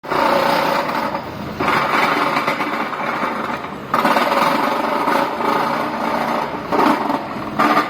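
High-frequency vibratory pile driver shaking a steel sheet pile into the ground: a fast, dense mechanical rattle that swells and eases several times.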